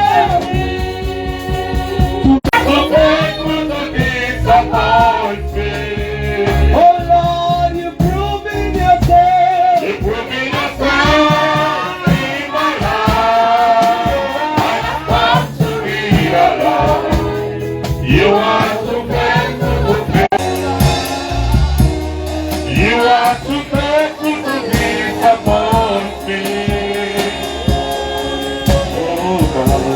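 Gospel worship music: singers over a band with a steady beat and bass.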